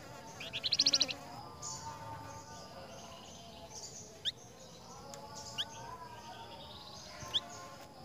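Flamboyan songbirds calling, one answering another's voice: a fast trill of about a dozen notes about half a second in, the loudest, then three short, quick rising whistles spaced through the rest, over faint background birdsong.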